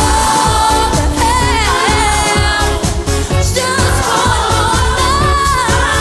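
Pop song playing, a voice singing a wavering melody over a steady beat.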